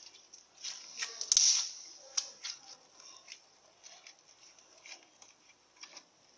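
Slime being squeezed and stretched by hand, giving irregular wet clicks and crackles, densest and loudest about a second and a half in, then sparser.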